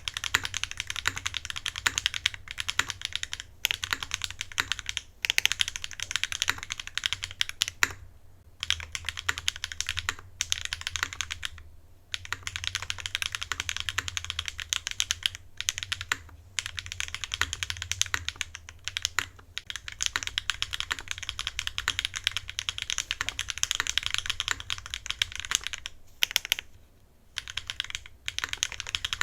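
Fast typing on an MC65 custom mechanical keyboard with Candy Red switches and GMK Cluck keycaps: dense runs of keystroke clacks a few seconds long, broken by brief pauses.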